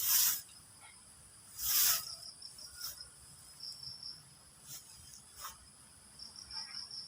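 Chorus of insects such as crickets, giving a steady high buzz with bursts of rapid pulsed trilling about halfway through and near the end. Two brief, louder hissing swishes come right at the start and about two seconds in.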